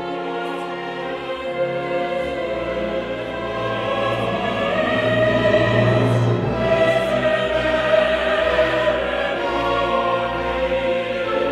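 Background music: operatic choral singing over an orchestra, with long held notes, swelling louder about halfway through.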